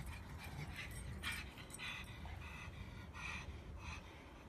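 Pug panting in short, irregular breaths.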